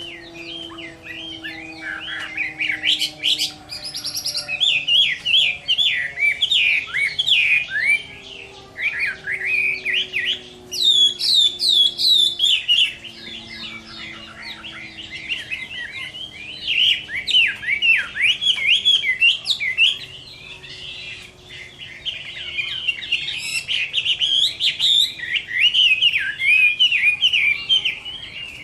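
Chinese hwamei (họa mi) singing vigorously: a long, fast, varied song of rapid whistled notes and sweeping phrases, broken by a few short pauses.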